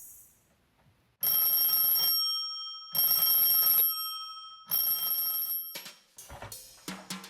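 A bell ringing three times, each ring lasting about a second with a short gap between. A few sharp clicks follow near the end.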